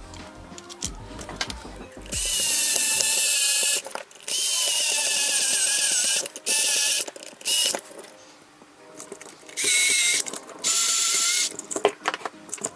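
Small electric screwdriver running in about six short bursts, the longest about two seconds, each with a high wavering motor whine, driving a screw into a small plastic and metal assembly.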